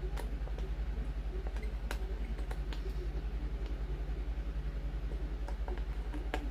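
A steady low mechanical hum with a fast, even pulse, with a few light clicks and taps from a small screwdriver turning screws into a plastic wheel hub.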